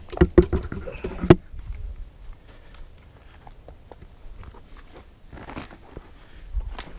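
Several sharp crunches and knocks in the first second and a half, then only faint scattered crackles.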